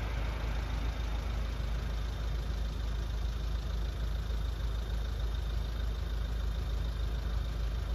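Road vehicles idling at a closed level crossing: a steady low rumble with no train passing.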